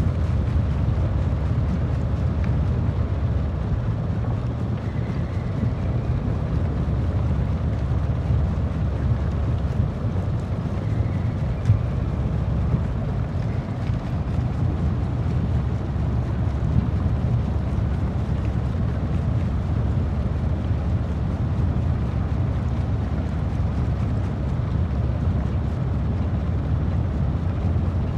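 Stone crusher running with a steady low rumble, with a couple of brief sharp knocks partway through.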